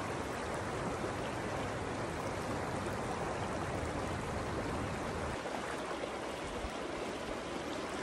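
Shallow river flowing over a rocky bed and small riffles: a steady rush of running water.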